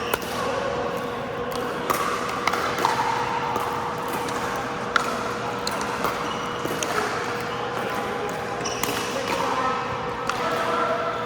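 Pickleball rally: paddles popping a plastic pickleball at irregular intervals, a second or two apart, with the murmur of other players' voices echoing around the indoor courts.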